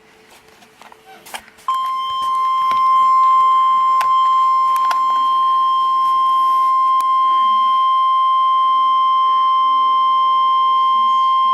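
Emergency weather alert tone: one steady, loud, high beep of about 1050 Hz, the single-tone warning alarm used on NOAA Weather Radio. It starts abruptly about two seconds in, holds for roughly ten seconds and cuts off. It signals that a warning broadcast, here a severe thunderstorm warning, is about to be read.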